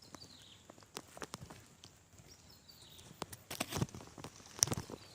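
Handling noise from a phone being set up and repositioned: irregular clicks, knocks and rustles close to the microphone, with louder clusters a little past halfway and near the end. Faint bird chirps sound behind.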